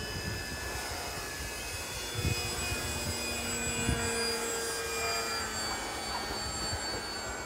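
Electric motors and propellers of two radio-controlled model seaplanes whining steadily in flight, with wind rumbling on the microphone.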